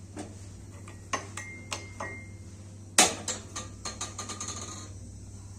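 Kitchen utensils knocking and clinking. A few separate knocks, one ringing briefly, then a sharp clank about three seconds in, followed by a quick run of light clinks.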